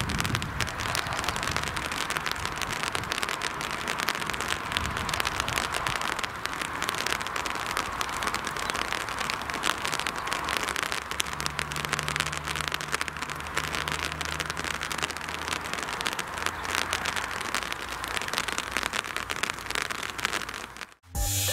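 Steady patter of light rain on a surface close to the microphone. A low car engine hum passes for several seconds in the middle, and the sound cuts off suddenly at the very end.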